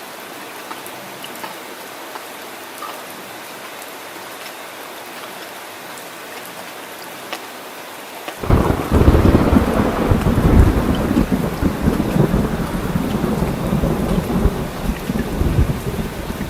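Steady rain hiss, then about halfway through, loud thunder breaks in suddenly and keeps rolling and rumbling over the rain.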